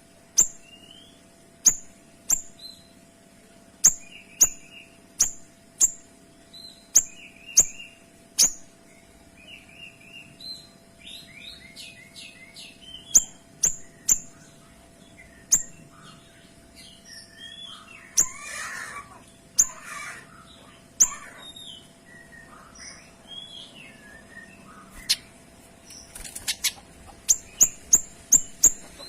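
A kinoy songbird calling with loud, sharp, high notes that drop quickly in pitch, the rapid 'tembakan' (shot) calls, spaced unevenly, with softer twittering and warbling between them. A quick burst of the sharp notes comes near the end.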